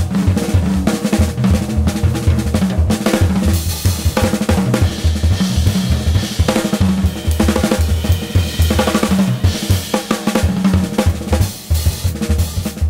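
Music with a busy drum-kit beat, snare, bass drum and cymbals, over a pulsing bass line.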